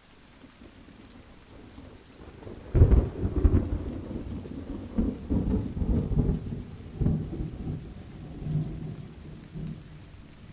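Steady rain falling. About three seconds in, a loud clap of thunder breaks and rolls on in a series of low peals, fading over the last few seconds.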